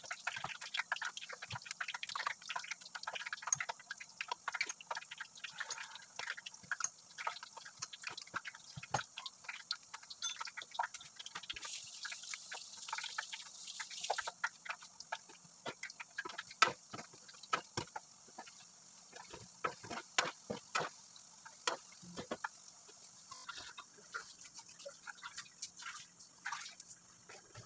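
Dumplings deep-frying in a wok of hot oil: a dense, irregular crackle of small pops and spits, growing sparser near the end.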